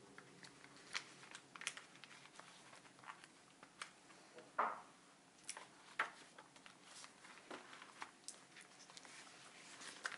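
Soft paper rustles and light taps from handling a paper tea sachet and turning the pages of a leather-covered traveler's notebook, with a few sharper rustles about four and a half and six seconds in.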